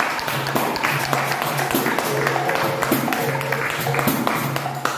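Berimbau being struck with its stick in a steady pattern of strokes, with a low pitched twang that comes and goes, over hand clapping: capoeira angola music. It stops abruptly at the end.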